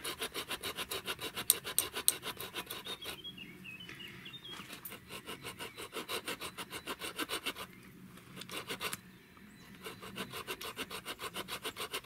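The small saw blade of a Ganzo G302-H multitool cutting through a thin wooden stick in rapid, even strokes, broken by a few brief pauses. The saw is biting well.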